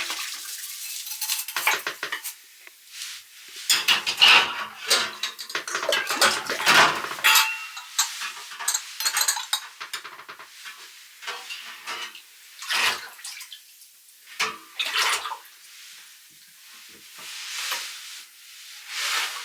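Dishes, pots and cutlery clinking and clattering irregularly as they are handled.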